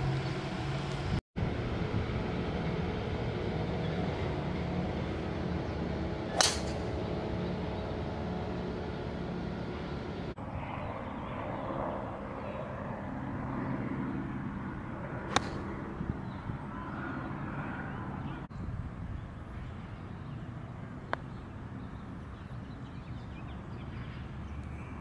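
Golf club striking a ball three times: a loud, sharp crack about six seconds in, another about fifteen seconds in, and a faint tap about twenty-one seconds in, the last from a putter. A steady outdoor hum runs underneath.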